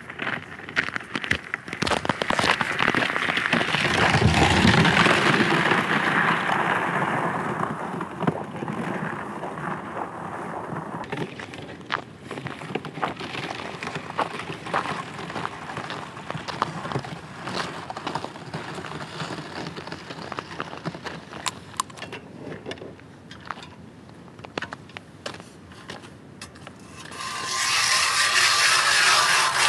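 Wind rumbling on the microphone, with crackling and scraping from footsteps and a sled towed across the ice. About 27 seconds in, a loud, steady rasping starts: an ice auger cutting into the lake ice.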